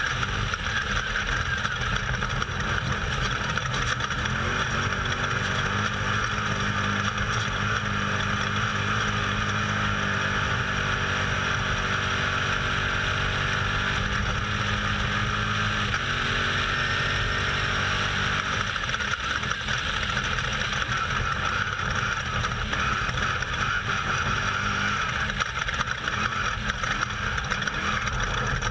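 Off-road race vehicle's engine running hard at speed, heard from on board over a steady rush of tyre, terrain and wind noise. The engine note climbs steadily about a third of the way in, drops abruptly, then climbs again.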